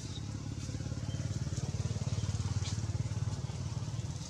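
Low, fast-pulsing engine rumble, like a small motor vehicle, growing louder through the middle and easing a little near the end.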